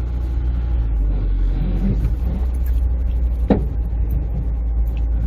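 Honda S2000's F20C four-cylinder engine running steadily in first gear as the wrecked car rolls over rough ground. About three and a half seconds in there is one sharp knock, part of the creaking and popping from the damaged, freshly reassembled body and suspension.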